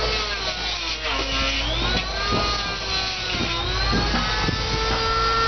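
Several power tools whining, their pitch sagging and climbing again every second or two as they are loaded and eased off, over a steady low hum, with a few short knocks.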